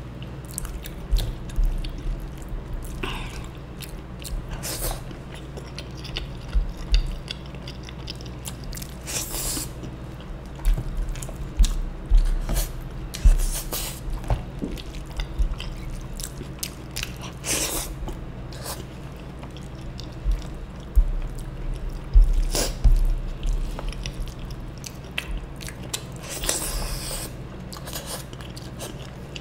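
Close-miked eating sounds: wet chewing with occasional crunches and mouth clicks, and the squelch of fingers scooping rajma curry, rice and crispy fried sev by hand. Irregular, with several louder bursts of crunching or squishing.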